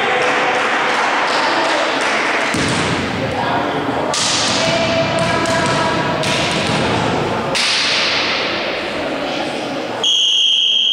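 Echoing sports-hall noise of players' voices and thuds, then about ten seconds in a referee's whistle sounds one loud, steady blast, the signal for the next volleyball serve.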